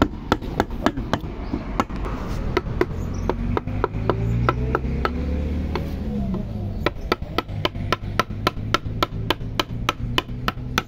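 Mallet striking a wood chisel as it cuts letters into a wooden sign: a steady run of sharp knocks, a few a second, thinning out for a few seconds in the middle and then coming quickly again.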